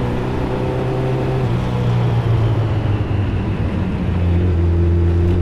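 Yamaha FJ1200's inline-four engine running under way on the road, with wind and road noise. Its note blurs briefly around the middle, then settles steady again, a little lower, from about four seconds in.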